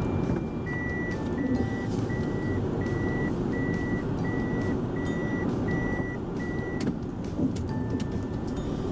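Toyota Voxy's reversing warning beeper: about nine evenly spaced high beeps, a little over one a second, that stop about seven seconds in, over a low engine and road rumble.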